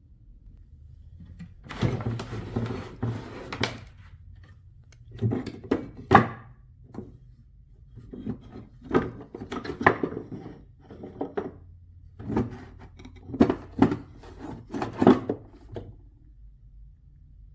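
Hand-work noises: spells of scraping and rubbing broken by knocks, in about six bursts with short pauses between them. The sharpest knock comes about six seconds in.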